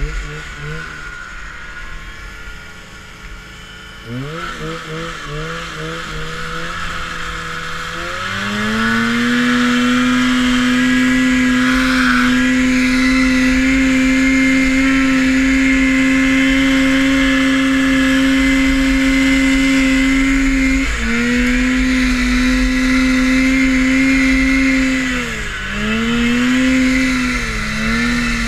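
Vintage Ski-Doo snowmobile's two-stroke engine: blipped in a few short revs, then opened up to a steady high-revving run held for about twelve seconds, easing off briefly once and then twice more near the end.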